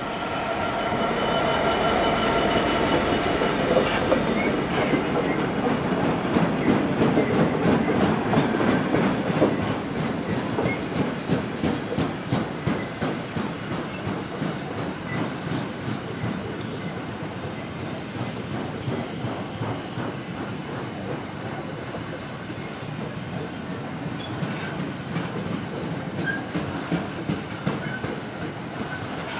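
Class 66 diesel freight locomotive passing, its two-stroke diesel engine loudest in the first several seconds. A long rake of loaded car-carrier wagons then rolls by, wheels clicking rhythmically over the rail joints.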